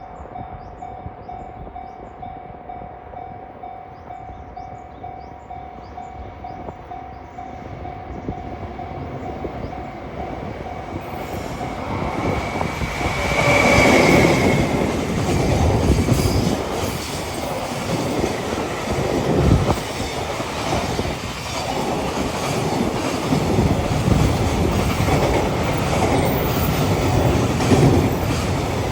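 Japanese level crossing alarm ringing steadily while a train approaches. About twelve seconds in, the alarm is drowned out as the train reaches the crossing with a brief high tone, then rumbles past with its wheels clattering over the rail joints.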